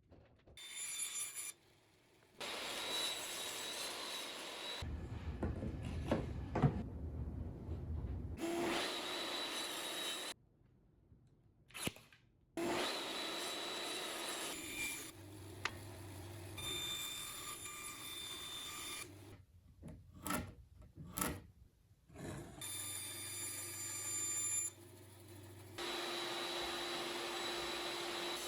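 Woodworking power tools running on wood in a series of short stretches, each starting and stopping abruptly, several with a steady high whine, separated by brief quiet gaps and a few knocks.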